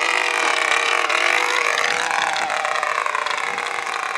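A control-line model airplane's small engine running at full throttle: a high, buzzing whine whose pitch rises and falls as the plane sweeps around the circle.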